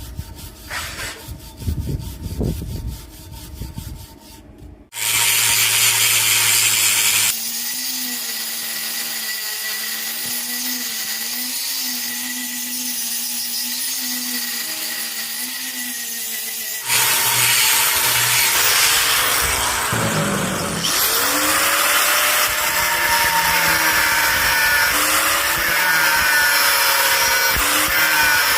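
A few seconds of metal clinks and knocks, then a power tool running steadily on metal, its motor pitch wavering as it works. It gets louder a little past halfway.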